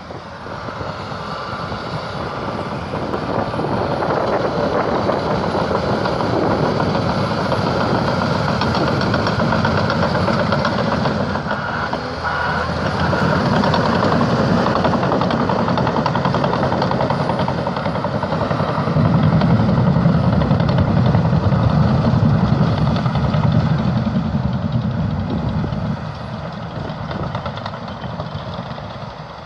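Caterpillar D6T LGP bulldozer's diesel engine working steadily, growing louder about two-thirds of the way through and easing off near the end.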